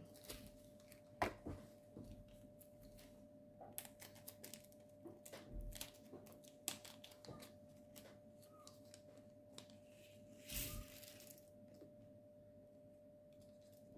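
Scattered light clicks and taps of small plastic containers, lids and resin diamond painting drills being handled, with a brief crinkle of a plastic zip bag about ten seconds in. A faint steady tone runs underneath.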